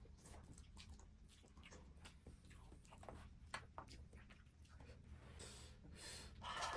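Faint eating sounds: scattered small clicks and mouth noises of someone eating ramen, over a steady low room hum. A brief louder breathy sound comes near the end.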